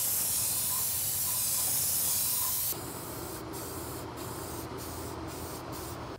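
Clear coat being sprayed: a steady spray hiss for nearly three seconds, then, after a break, quieter short spurts from an aerosol can of matte varnish with brief gaps between them.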